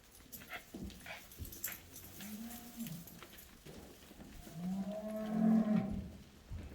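Cattle mooing twice: a short moo a couple of seconds in, then a longer, louder one near the end, with faint knocks and clicks around them.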